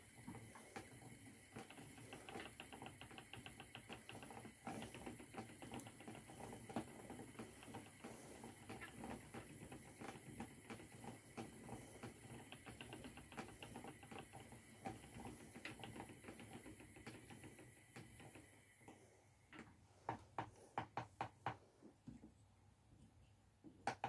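Faint handling of yarn being plied: light, rapid ticking and rustling as the yarn and plying thread twist through the fingers, over a faint steady high whine. The whine stops near the end, followed by a short run of louder clicks.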